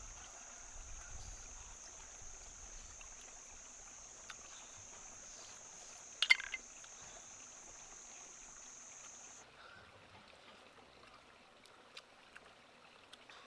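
An insect buzzing steadily at a high pitch, stopping suddenly about nine seconds in. A single sharp click sounds about six seconds in, and a few faint ticks come near the end.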